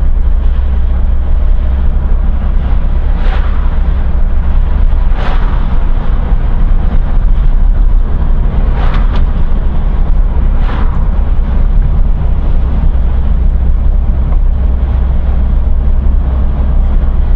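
A car driving steadily, heard from inside the cabin: a loud, constant low rumble of engine and road noise, with four short whooshes about 3, 5, 9 and 11 seconds in.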